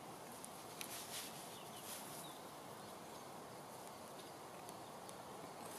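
Faint rustles and soft scrapes of cord being wound and pulled tight around two wooden poles, over quiet woodland ambience.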